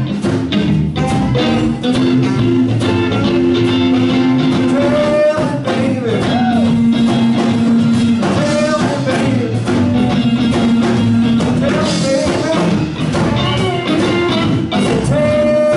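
Live blues band playing a slow blues on electric guitar, bass guitar, drum kit and saxophone. Long held melody notes bend over the band throughout.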